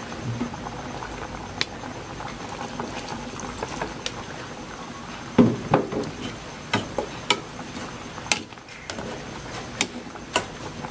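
Fish and pickled bamboo shoot soup boiling hard in an aluminium pot, bubbling steadily. A metal ladle stirs and clinks against the pot several times from about halfway through, loudest the first time.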